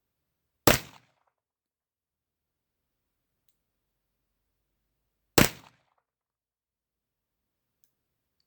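Two single pistol shots from a 1911 in slow, aimed fire, a little under five seconds apart, each a sharp crack with a short echoing tail.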